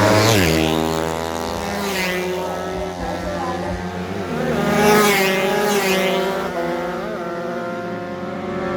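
Several racing motorcycle engines running at high revs, their pitches rising and falling as riders work the throttles, with two loud pass-bys, about half a second in and about five seconds in.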